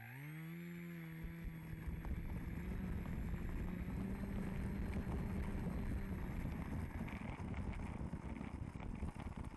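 FPV model airplane's motor and propeller spinning up with a rising whine that settles to a steady pitch, heard from the onboard camera. A rough rumble builds as the plane rolls along the pavement and takes over from about the middle.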